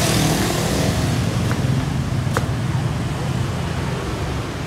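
Street traffic: a steady rumble of engines, with a vehicle going by loudest right at the start and then fading. Two sharp clicks come about one and a half and two and a half seconds in.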